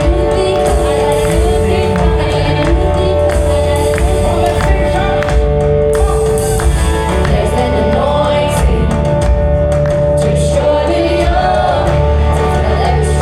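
Live gospel praise music: voices singing over long held chords and a bass line, with a steady percussion beat.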